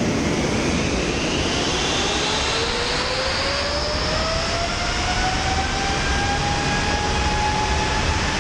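GE90-115B turbofan jet engine starting up: a whine that climbs steadily in pitch as the engine spools up and levels off in the later seconds, over a steady rush of air.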